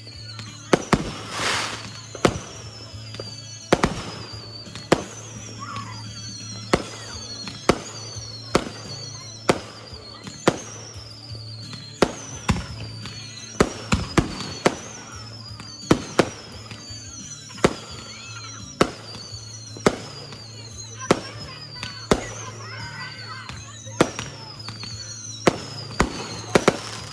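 Fireworks going off in an irregular run of sharp bangs, about one or two a second, with repeated high falling whistles between them and a longer hiss about a second and a half in.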